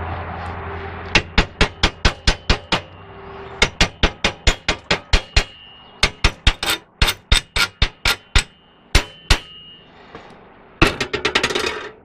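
Chipping hammer striking steel in quick runs of several blows a second, each with a metallic ring, knocking slag off a fresh stick weld. A denser, faster rattle of strikes comes near the end.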